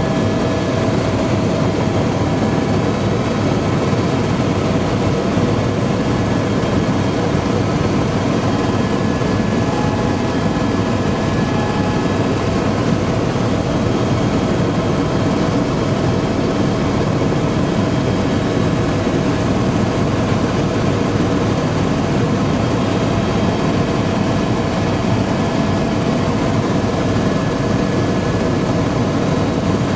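Helicopter in flight, its engine and rotor noise heard from inside the cabin: a loud, steady rush with a few steady whining tones over it.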